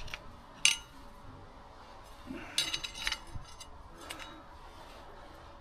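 A few light metallic clinks and clicks from hand tools and metal parts while the speed sensor is worked out of a BMW R1200GS final drive: one just over half a second in, a cluster around three seconds, and another near four seconds.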